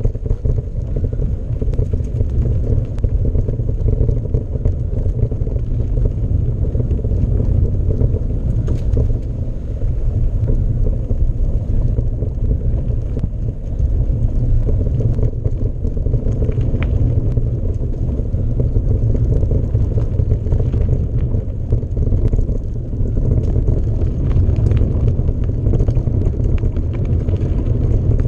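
Wind buffeting the microphone while riding a mountain bike: a loud, steady low rumble, with a few faint rattles here and there.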